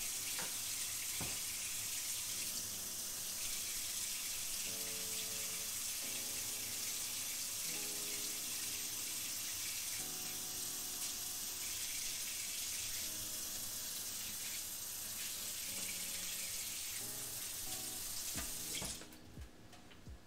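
Kitchen sink tap running steadily while hands are washed after handling raw meat. The water cuts off suddenly near the end as the tap is shut.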